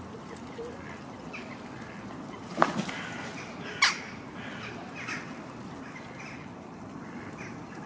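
Park birds calling: scattered short calls over a steady outdoor background, with two sharp, loud sounds about a second apart near the middle.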